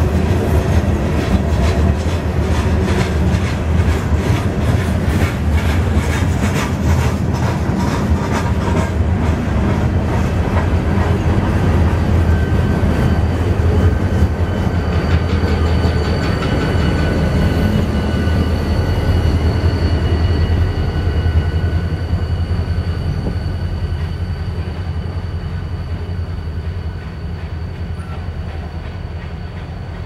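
Freight train passing close by: a heavy low rumble with rapid wheel clatter over the rail joints. As an EMD SD40-2 diesel locomotive goes by about midway, a steady high whine comes in, and then the sound fades as the train pulls away.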